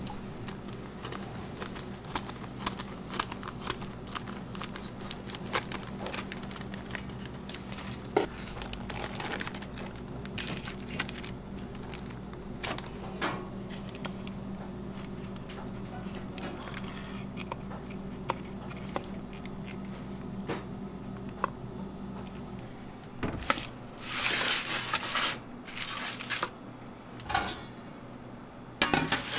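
Kitchen handling sounds: aluminium foil crinkling and the light clicks and dabs of sauce being brushed onto a foil-wrapped beef rib, over a steady low hum. Near the end, louder rough scraping and rustling bursts come as the foil tray goes into the pizza deck oven.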